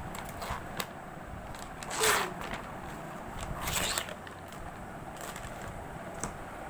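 Thin plastic sweets tray rustling and crackling as a hand handles it, in short bursts, loudest about two seconds in and again near four seconds.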